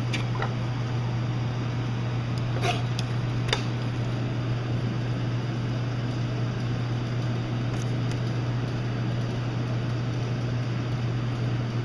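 Steady low electrical or machine hum with an even hiss, the constant background of the room. A few faint taps of a knife against a wooden cutting board come in the first four seconds as chicken breast is trimmed.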